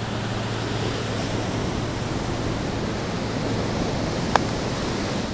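Ocean surf breaking and washing up a sandy beach, a steady rushing sound, with a single sharp click about four seconds in.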